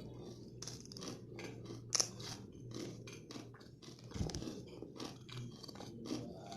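Close-miked chewing of crunchy peanut candy (kadalai mittai, jaggery peanut brittle): a steady run of crisp crunches, with a sharper crack about two seconds in and a dull thud a little after four seconds.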